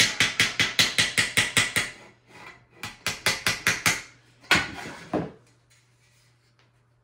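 Small hammer tapping the thin-gauge metal flange of a cockpit capping on a small bench anvil to flatten out its dents. The light strikes come about six a second in two quick runs, with a louder knock about four and a half seconds in, then it stops.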